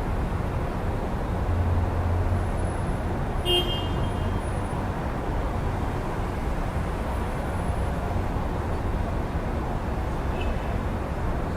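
Steady low rumble of city road traffic, with a short high beep about a third of the way in.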